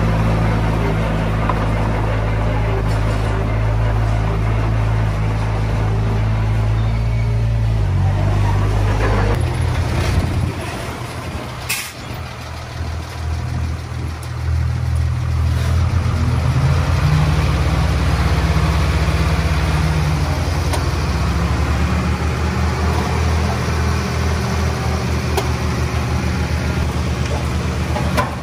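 Heavy diesel earthmoving machine's engine running. Its pitch shifts about eight and nine seconds in, then it drops back and goes quieter for a few seconds, with a sharp click near twelve seconds, before picking up again from about sixteen seconds and holding steady.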